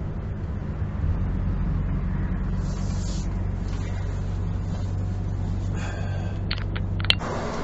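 Steady low engine hum and tyre-on-road noise inside a moving vehicle's cab at cruising speed, with a few short sharp clicks near the end.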